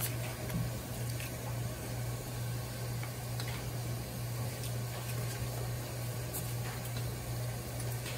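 A steady low hum, with a few faint light clicks and soft wet scooping as a steel ladle tips boiled silkworm pupae into a paper cup.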